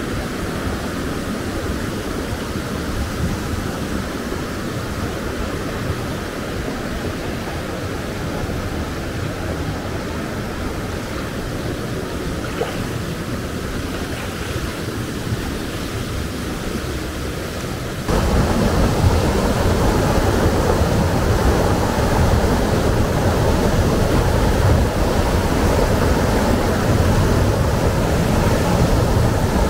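Mountain creek water rushing over rocks, a steady noisy rush with no let-up. About 18 seconds in it jumps suddenly louder as a cascade pouring into the pool fills the sound.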